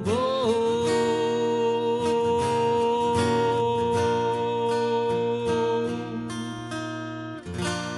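Acoustic guitar played as a song closes: a long held note over strummed chords, then a final strummed chord about seven and a half seconds in that is left to ring and fade.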